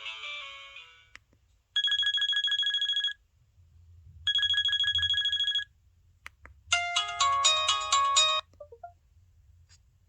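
LG-SH840 mobile phone's built-in alarm beep tone. Two bursts of rapid, high electronic beeping, each a little over a second long, are followed by a short, quick beeping tune. A musical ringtone fades out in the first second.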